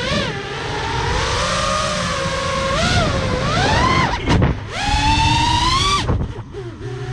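FPV racing quadcopter's brushless motors whining, the pitch rising and falling with the throttle. The pitch drops sharply and climbs back a little past four seconds, then falls away to a lower, quieter whine about a second before the end as the throttle is cut.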